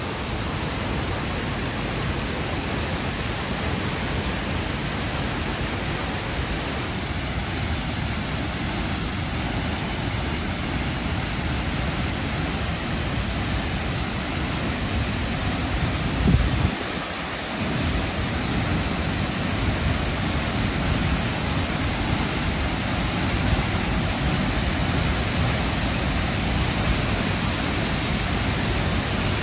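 A waterfall with a drop of nearly 30 m, pouring steadily: a constant, even rushing. A brief low thump comes just past halfway.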